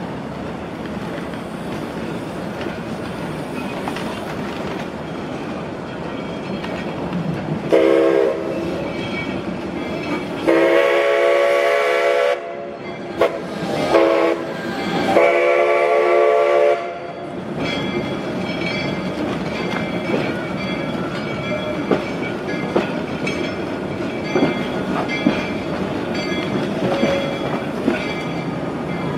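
Narrow-gauge steam train running, with a steady rumble and clicking of the wheels over the rail joints. The locomotive's steam whistle blows a short note about 8 s in, then two long blasts of about two seconds each.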